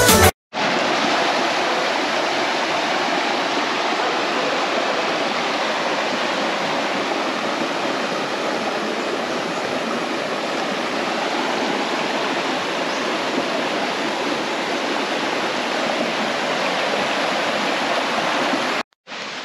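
Creek water rushing steadily over rocks, an even, unbroken rush that cuts off suddenly near the end.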